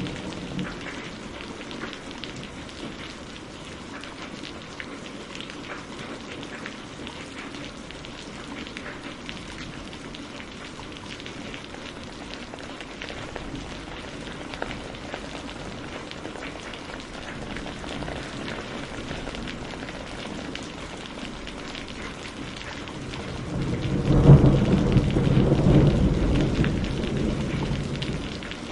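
Steady rain falling, with drops pattering. Near the end a loud roll of thunder swells up and fades away.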